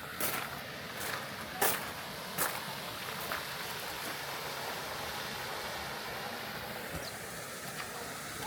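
Steady rush of falling water from a garden waterfall. A few short sharp taps in the first three seconds.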